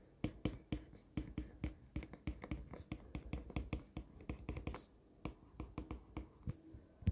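Apple Pencil tip tapping and clicking on an iPad's glass screen during handwriting: a quick, irregular run of light taps, several a second.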